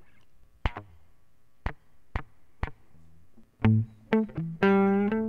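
Playback of a short guitar track recorded with the guitar plugged straight into Pro Tools. It opens with a few sharp clicks in an even beat, about half a second apart, then picked guitar notes and chords start about three and a half seconds in.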